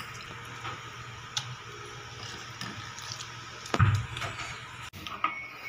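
A hand scraping and scooping wet ground masala paste off a stone grinding slab (ammi) into a clay bowl: soft wet squishing and scraping with small clicks, and one louder knock about four seconds in.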